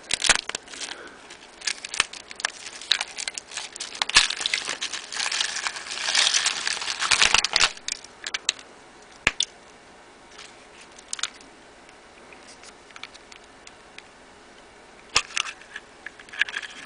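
Foil wrapper of a chocolate surprise egg crinkling as it is unwrapped, with sharp clicks and crackles. The rustling dies down after about eight seconds, leaving a few scattered clicks, with more near the end.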